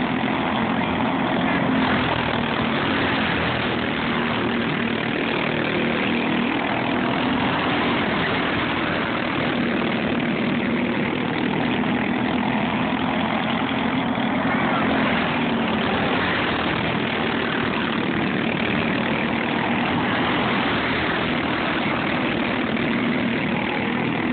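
Several high-revving racing go-kart engines running together, their pitch slowly rising and falling as the karts circle the track.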